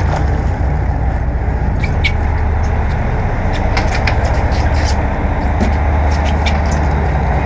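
Sportfishing boat's engines running steadily under a rush of wind and water, with scattered sharp clicks and knocks.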